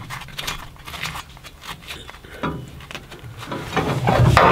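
Irregular light metal clicks and taps as a bolt-on latch is fitted to the cast iron draft door of a maple syrup evaporator.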